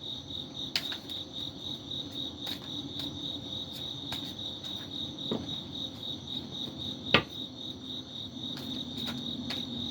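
A cricket chirping steadily in a rapid, even pulse, with a few sharp clicks scattered through, the loudest about seven seconds in.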